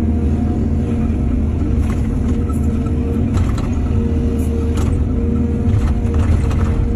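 Excavator's diesel engine running steadily with a low rumble and hum, with scattered clanks and rattles through the middle.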